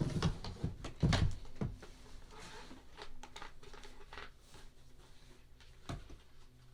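Leaf blower parts and packaging being handled in a cardboard box: rustling with a few sharp knocks, the loudest about a second in.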